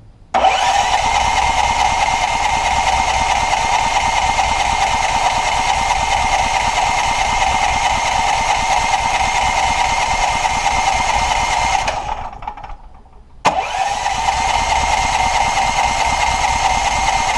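Electric starter motor cranking a Clarke FG5100ES petrol generator's 13 hp engine with the choke on, run from jump leads because the battery is dead. It makes one long crank of about twelve seconds, stops briefly, then cranks again for about four seconds, with the engine not catching.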